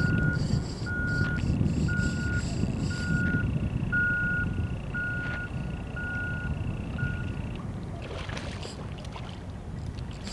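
A vehicle's back-up alarm beeping steadily, about once a second, over a continuous low rumble. The beeping stops about three-quarters of the way in.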